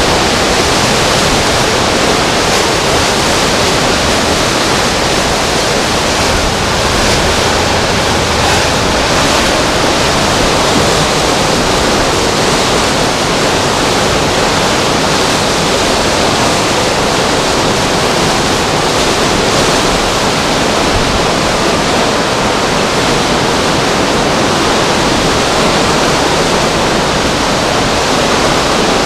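Hurricane-force wind blowing hard, a loud steady rushing noise with no let-up.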